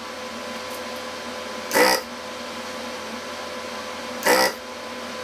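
The Hakko-808 desoldering gun's built-in vacuum pump runs in two short bursts, each about a third of a second and about two and a half seconds apart, sucking molten solder from a circuit board's pins over a steady background hum.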